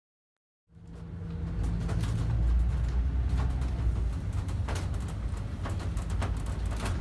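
Shuttle bus running, heard inside the cabin: a steady low engine rumble that starts about a second in, with scattered clicks and rattles.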